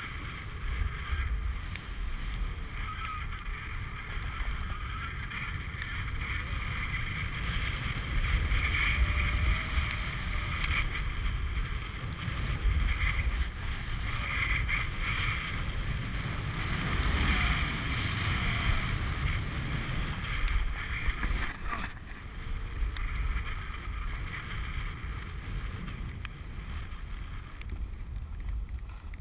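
Wind rumbling on an action camera's microphone during a descent on snow, over the hiss and scrape of edges sliding across packed snow, which swells and fades with the turns.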